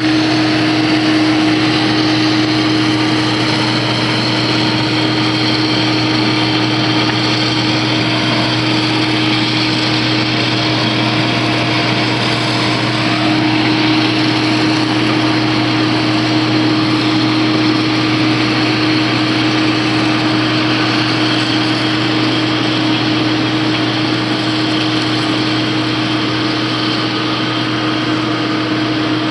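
IH 2577 combine harvester running steadily under load, its engine and machinery giving a constant, even hum with no changes in speed.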